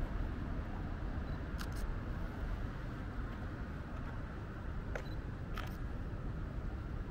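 Low, steady hum of distant city traffic. A few brief sharp clicks cut through it, two close together about one and a half seconds in and two more around five seconds in.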